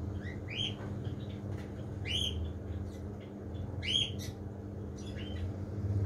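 Birds chirping: a short rising call repeated about every two seconds, with fainter chirps between. Under them, the steady hum of the aquarium's air pump and power filters.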